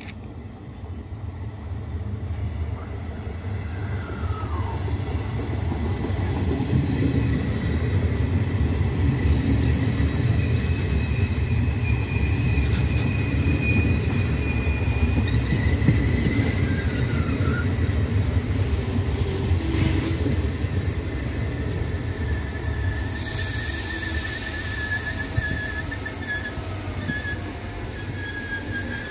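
Regional passenger train of single-deck coaches running along the platform track: a low rumble of wheels on rails that builds over the first several seconds and then holds. High squealing tones sound in the middle and again through the last several seconds, with a hiss from about two-thirds of the way in.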